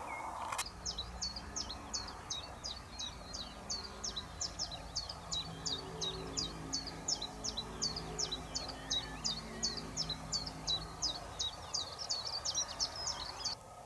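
Common chiffchaff singing: a long run of sharp, high notes repeated about three a second, cutting off suddenly near the end.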